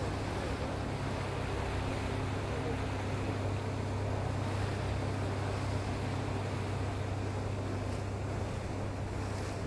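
Linssen Grand Sturdy motor yacht under way: a steady low diesel engine drone, with water rushing along the hull and wind on the microphone.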